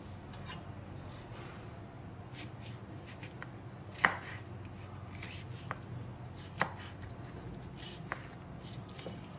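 Kitchen knife chopping pomegranate skins on a bamboo cutting board: a few irregular, sharp knife strikes on the board, the loudest about four seconds in.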